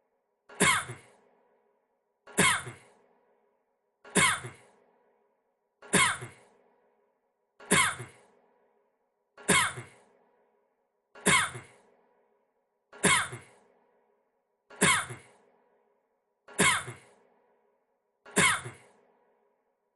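A man's short cough, one recording looped so that the identical cough repeats about every two seconds, eleven times, each sharp at the start and quickly fading.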